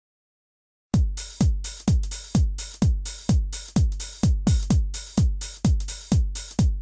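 Electronic dance music starting about a second in. A steady four-on-the-floor kick drum strikes about twice a second, with bright hi-hat hiss between the beats.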